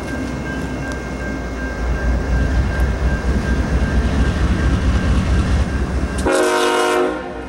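GE ES44AC diesel-electric locomotive approaching, its diesel engine's deep rumble growing louder, then a short horn blast of under a second near the end.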